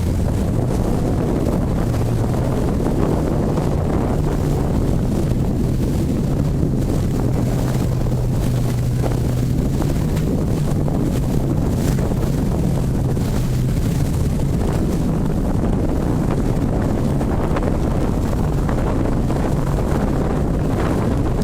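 A boat's engine running steadily under way, with wind buffeting the microphone. The engine's low hum drops away about two-thirds of the way in, leaving the wind.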